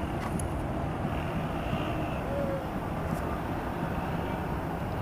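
Steady low outdoor rumble, like distant city traffic or wind on the microphone, with no clear single event.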